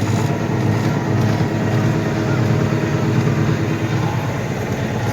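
Diesel engine running steadily just after catching on a cold start at 14 degrees without ether.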